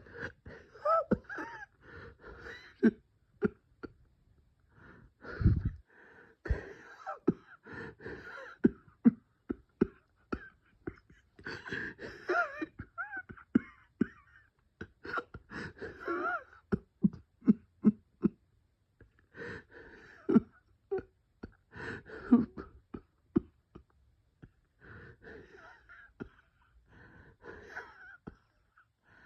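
A person wheezing and coughing through a bronchospasm: laboured breaths carry high, whistling wheezes that waver in pitch, broken by many short, sharp coughs, in bouts with brief pauses between them.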